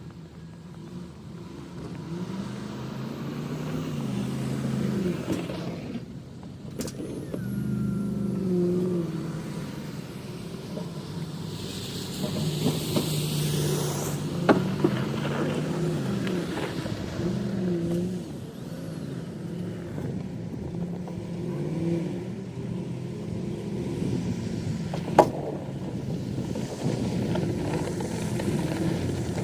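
Engine of a snow-clearing vehicle running and repeatedly rising and falling in speed as it works, with a few sharp clicks and a short hiss midway.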